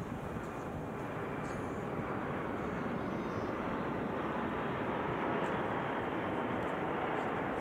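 Jet noise from Aermacchi MB-339 aerobatic jets: a steady, rushing roar with no clear tone, growing slowly louder.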